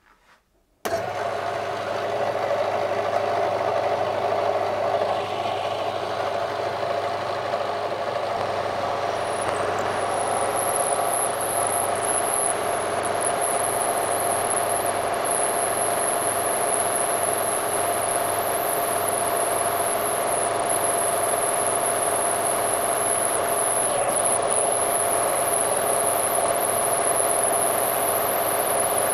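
Bench milling machine's motor starting about a second in and then running steadily, as a 5 mm end mill cuts a slot into a thick aluminium tube. A thin, high, steady whine joins about nine seconds in.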